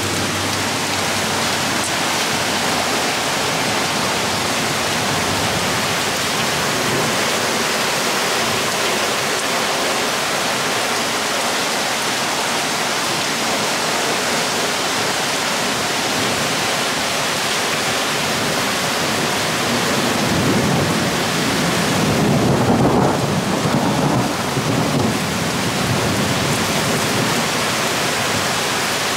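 Heavy rain pouring down in a steady hiss during a thunderstorm. About two-thirds of the way through, a low rumble of thunder swells and fades.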